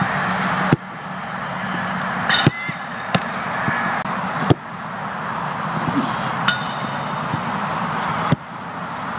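A football being struck during goalkeeper shot-stopping practice: about six short, sharp knocks spread a second or two apart, over a steady outdoor background hiss.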